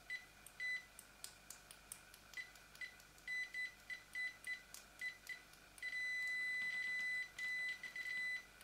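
Uni-T UT61E digital multimeter's continuity beeper giving short high beeps in an uneven, stuttering run, with one longer beep of about a second and a half near the middle, and light clicks of the test-probe tips tapping together. The beeper sounds only some of the times the shorted probes are touched, so the meter registers continuity only intermittently.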